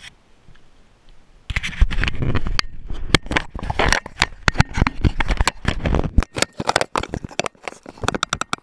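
Hand handling the action camera right at its microphone: loud, dense scraping and rubbing with many sharp clicks, starting about a second and a half in.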